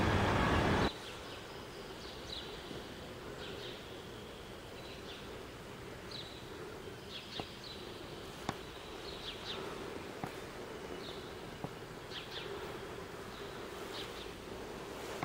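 Loud outdoor noise cuts off about a second in, giving way to quiet church-interior ambience. That ambience has a faint steady hum, scattered short high chirps and a few light clicks.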